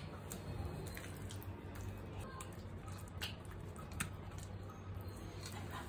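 Soft wet squishing of a hand smearing thick masala marinade paste over pomfret fish pieces in a steel bowl, with a few light clicks, over a low steady hum.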